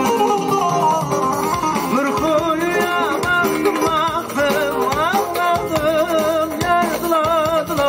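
Live Turkish folk music: a bağlama (long-necked saz) plucking along under a sung melody that wavers with heavy vibrato and ornaments, without a break.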